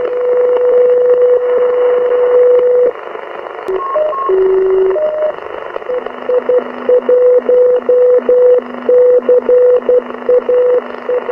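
The EI1CAH 8-metre propagation beacon heard as a tone through a receiver's audio over steady hiss: a long unbroken carrier note that stops about three seconds in, a few brief notes at other pitches, then from about halfway on Morse keying that jumps back and forth between a higher and a lower tone.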